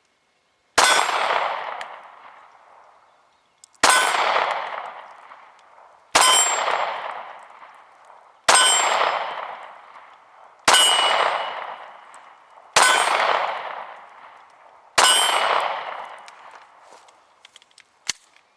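Seven slow, aimed shots from a Beretta Nano 9mm subcompact pistol, about two to three seconds apart. Each shot is sharp and followed by a long ringing tail that dies away over about two seconds.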